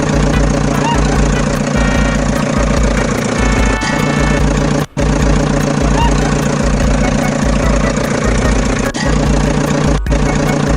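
Auto rickshaw engine idling: a steady, pulsing putter, with short breaks about five and ten seconds in.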